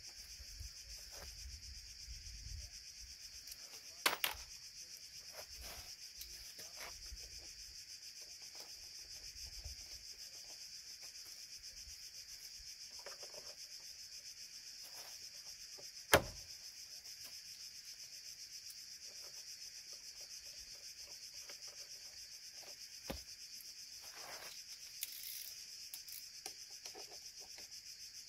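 Scattered sharp clicks and light clinks of hand tools against the car's front-end fittings, the loudest a single sharp click about 16 s in. Under them is a steady high-pitched insect chorus.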